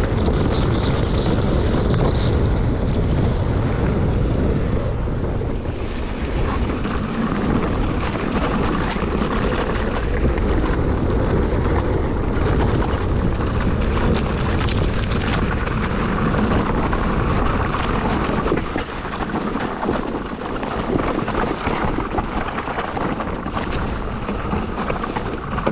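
Wind rushing over a mountain bike's action-camera microphone, with tyres rolling on a dirt trail and small rattles and clicks from the bike. It eases off a little about three-quarters of the way through.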